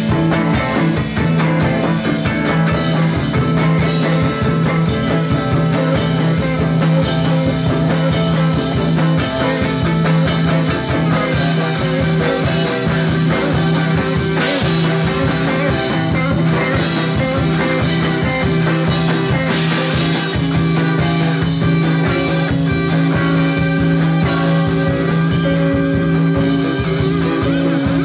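Live rock band playing loudly: electric guitars and bass over a drum kit with steady cymbals, and a low droning note held under it.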